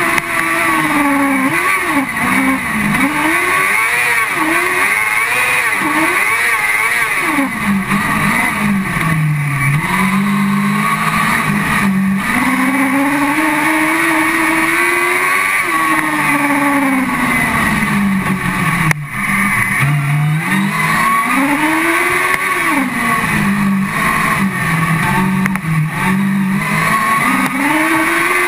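Onboard sound of a car cross buggy's motorcycle engine at racing speed on a dirt track, its pitch rising and falling again and again as it accelerates, changes gear and slows for corners, with one long high-revving stretch in the middle.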